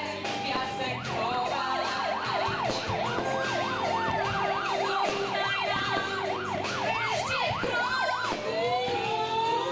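A siren sweeping rapidly up and down in pitch, about three times a second, changing near the end to a slow rising wail, over music.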